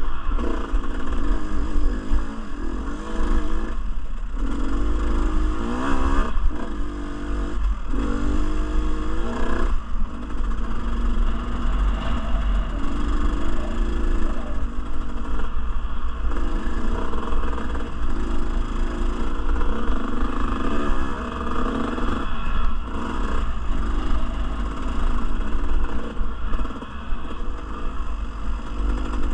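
Dirt bike engine running under load, its pitch rising and falling as the throttle is opened and closed, over a heavy low rumble of wind on the camera microphone.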